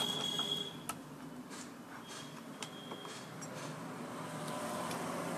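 Induction cooker's control-board buzzer beeping, with one short high beep at the start and a longer one about two and a half seconds in, as the board is powered up for testing after a capacitor replacement. There are a few light clicks over a steady low hum.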